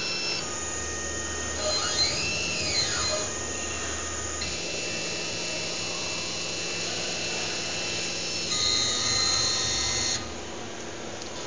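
CNC hot wire foam cutting machine running as its wires slice an EPS foam block, a steady motor whine with several held tones. About two seconds in, one tone glides up and back down. About ten seconds in, the sound drops noticeably quieter.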